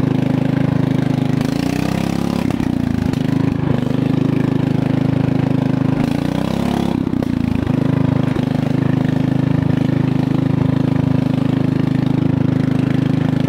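A 12 HP Briggs & Stratton single-cylinder engine on a riding lawn tractor runs with an open exhaust manifold and no muffler as the tractor is driven. Its speed sags and climbs back up twice, about two seconds in and again about six seconds in, then holds steady.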